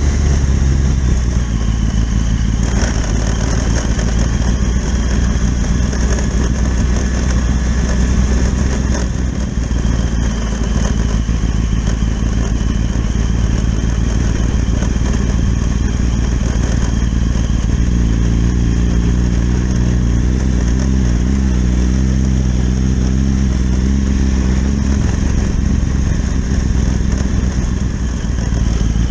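Motorcycle engine running under way, with a steady rush of wind and road noise. The engine note rises and falls a few times in the last third.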